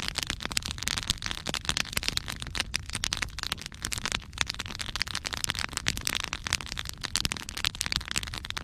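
Log fire crackling, with many sharp snaps and pops over a low steady rumble of flame.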